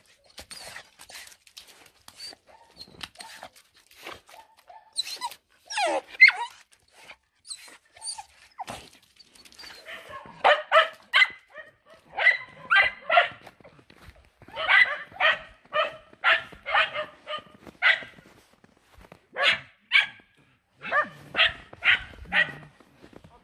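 A dog barking in quick runs of short barks, about three a second, starting about ten seconds in. Before that, a brief high whine comes about six seconds in.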